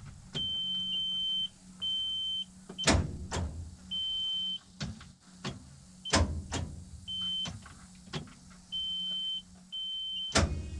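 Starter solenoid clicking each time the starter is tried, with the engine not cranking, among a dozen sharp clicks with the loudest about three, six and ten seconds in. A high warning beep sounds on and off in short steady tones over a low hum. The owner suspects a faulty solenoid or starter, since the battery is fully charged.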